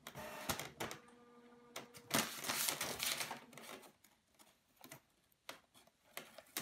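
Inkjet all-in-one printer printing: clicks, then a short steady mechanical whine about a second in. A louder rush of paper-feed and paper noise follows about two seconds in, then scattered clicks.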